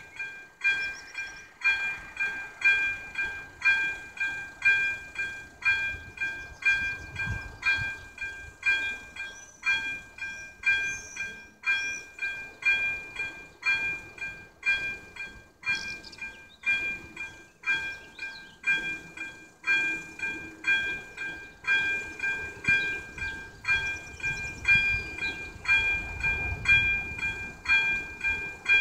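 Level-crossing warning bell ringing in a steady, quick ding-ding-ding, each strike a bright, ringing tone, sounding with the flashing red lights to warn that a train is approaching.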